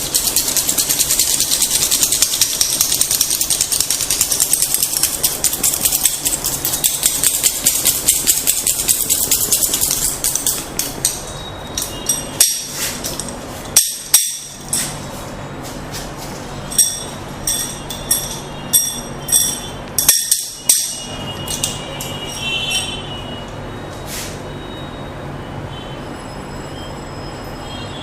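Percussive massage tapping: a fast, continuous run of rapid strokes for about ten seconds, then slower separate sharp taps.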